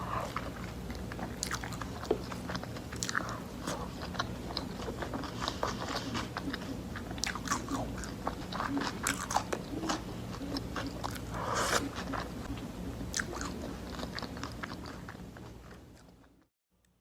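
Close-miked biting, crunching and chewing of a beef burger wrapped in crisp cabbage leaves, with many small wet crackles and clicks over a faint steady hum. The sound fades and stops shortly before the end.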